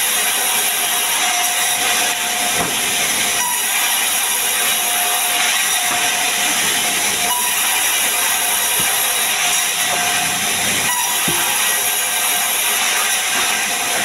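Large sawmill band saw running and ripping a wooden slab lengthwise into boards, a steady high-pitched rushing noise of blade and wood with no pauses.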